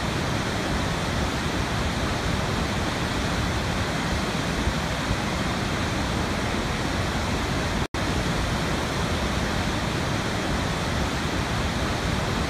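Steady, even rushing noise with no swell or rhythm, like a waterfall or a pink-noise track, cutting out for an instant about eight seconds in.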